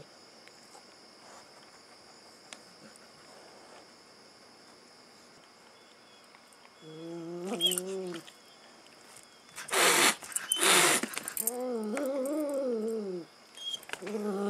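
A cat growling and hissing at a dog while pawing at its face: a short low wavering growl about seven seconds in, two sharp loud hisses near ten seconds, then a longer wavering growl that rises and falls.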